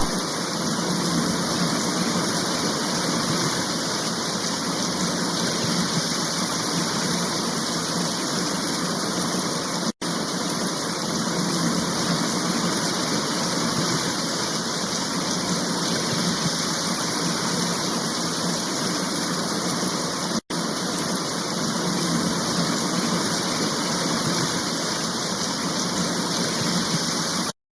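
Steady rushing water, like a waterfall or fast stream, an even roar that cuts out for an instant twice.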